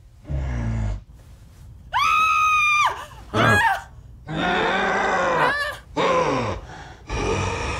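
A woman and a man screaming: a short low groan first, then a long high scream about two seconds in, followed by several more screams and yells in turn and together.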